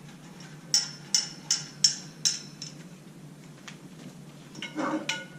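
Chrome steel shelving poles clinking metal on metal: five sharp clinks with a short ring, about two a second, as the upper poles are screwed into the lower poles.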